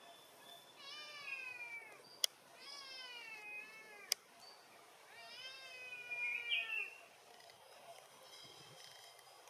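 Baby macaque crying: three long calls, each rising and then falling in pitch, with two sharp clicks in between.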